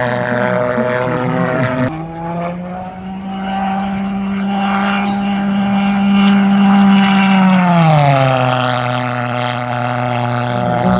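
Radio-controlled model aircraft's engine running in flight: a steady engine note that rises slightly about two seconds in and drops in pitch about eight seconds in.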